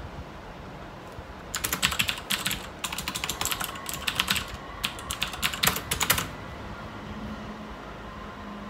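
Typing on a computer keyboard: several quick runs of keystrokes with short pauses, stopping about six seconds in.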